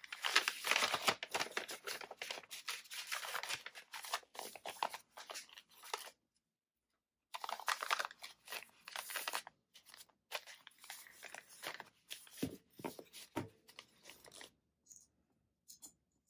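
Paper rustling and crinkling as banknotes are handled and a paper envelope is folded and sealed, in dense stretches with a short pause. It thins out to scattered crinkles, with a couple of soft knocks about three-quarters of the way through.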